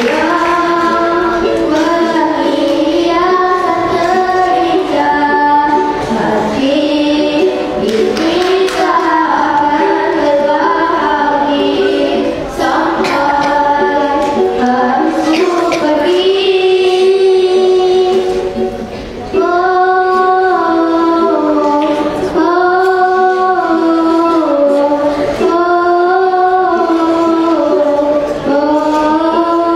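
A girl singing a song into a microphone with a ukulele accompanying her. She sings long held notes in phrases, with short breaths between them about 12 seconds in and again about 19 seconds in.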